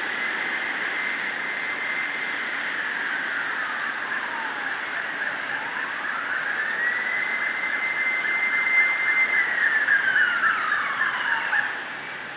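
Fire truck siren wailing in slow cycles: each one rises to a high held tone, then slowly falls, twice. During the second cycle a fast warbling tone joins in, and the siren cuts off sharply near the end.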